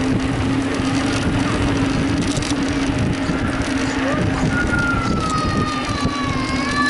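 Rushing wind and road noise on a camera riding along on a mountain bike, over a steady low hum. From about four seconds in, high drawn-out calls slide slowly down in pitch.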